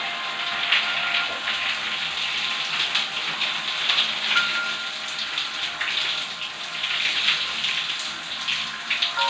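Shower water running and splashing.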